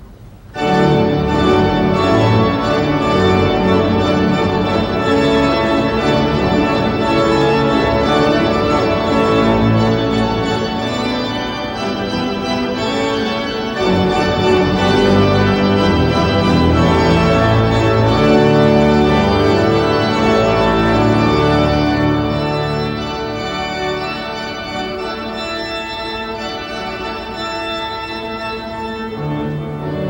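Pipe organ playing full, sustained chords, starting abruptly about half a second in and softening somewhat in the last third.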